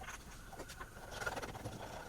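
Irregular light knocks and scraping, with a faint steady high tone underneath.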